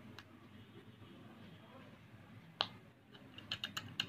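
Silicone bubbles of a pop-it fidget spinner pressed in with a fingertip, making small popping clicks: one sharp pop about two and a half seconds in, then a quick run of pops near the end.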